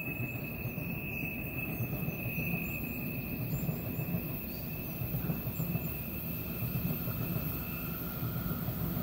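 ÖBB Railjet train approaching around a curve: a steady rumble with a thin, high, steady wheel squeal from the curving track. Near the end the squeal gives way to a fainter, lower one.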